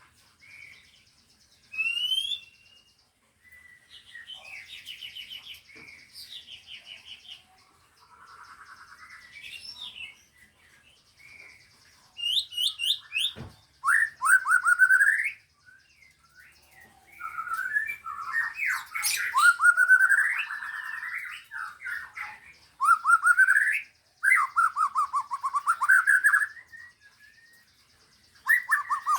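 Several songbirds singing over one another, with a mix of high trills, chatter and whistles. From about halfway through, loud repeated rising phrases dominate, answered by other birds. A single sharp click is heard near the middle.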